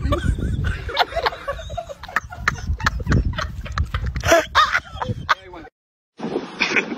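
Low voices and laughter mixed with many quick clicking sounds. Near the end they stop dead at a cut, and after a brief silence steady wind noise on the microphone takes over.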